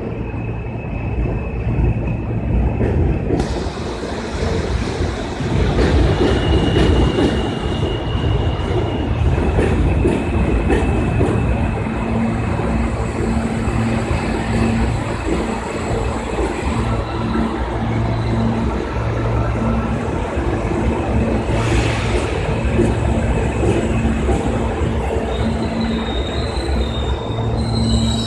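An R160B New York City subway train rolls into the station, with a steady rumble and clatter of wheels on the rails and a few thin high tones over it. Near the end several high-pitched wheel squeals come in.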